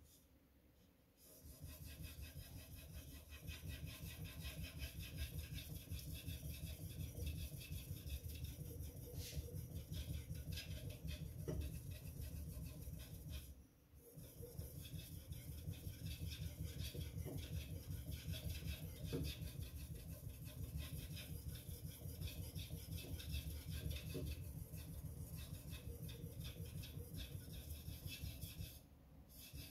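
Steel knife blade (a Tojiro VG10) rubbed back and forth on an Arashiyama #6000 finishing waterstone: quick, steady sharpening strokes that start about a second and a half in, stop briefly about halfway, and pause again just before the end.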